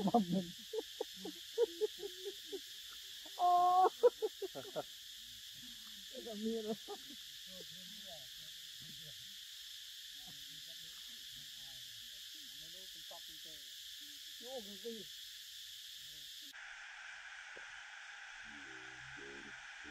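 A short hoot-like animal call about three and a half seconds in, with a few softer short calls scattered through the first fifteen seconds, over a steady high hiss.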